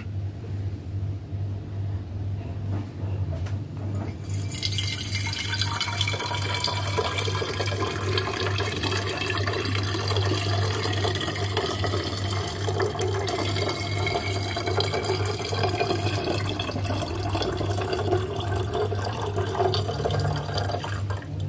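Fizzy homemade wine poured in a stream into a glass bottle, starting about four seconds in and running until near the end. It splashes and foams, and the pitch of the pour rises slowly as the bottle fills.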